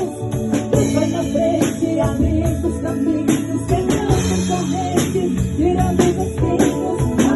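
Instrumental passage of a gospel song on a Casio keyboard: a melody over a steady beat with jingling percussion like a tambourine.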